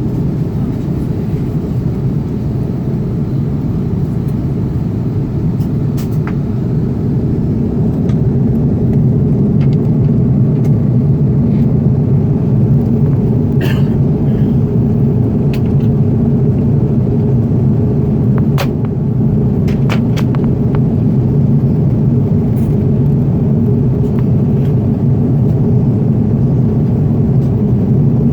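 Airbus A330 airliner heard from inside the passenger cabin: a steady low rumble that grows slightly louder about a third of the way through, with a few faint clicks.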